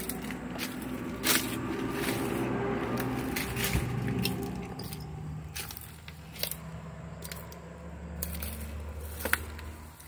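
Footsteps through weeds and debris, with scattered snaps and crunches, over a steady low hum.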